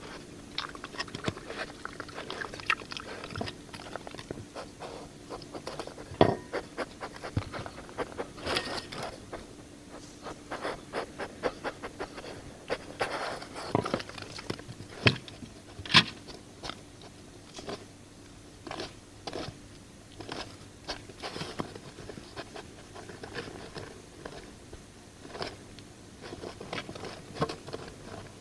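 A European badger foraging right by the microphone: a run of irregular crunches, clicks and scrapes as it chews food scraps and scratches at the ground, with a few louder knocks about six and sixteen seconds in.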